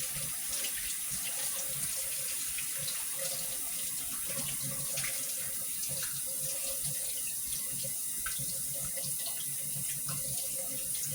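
Kitchen tap running steadily into a sink, starting and stopping abruptly.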